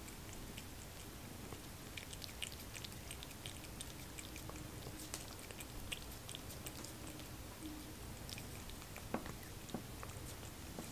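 Cat licking puree from a squeeze-tube Churu treat: faint, irregular wet clicks of the tongue, with a couple of sharper knocks near the end.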